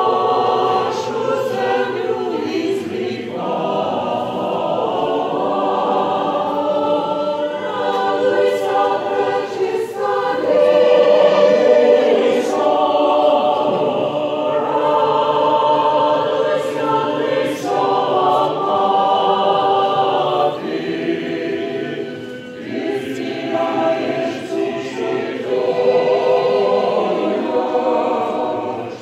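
Mixed choir of men's and women's voices singing unaccompanied, in long phrases with brief breaks between them.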